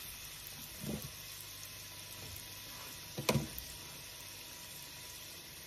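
Egg rolls and wontons deep-frying in a pan of hot oil: a steady sizzle and bubbling. A brief louder sound stands out about three seconds in, and a fainter one about a second in.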